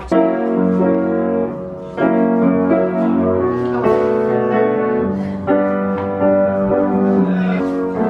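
Background music: piano chords played at a steady, unhurried pace, with a sustained bass underneath.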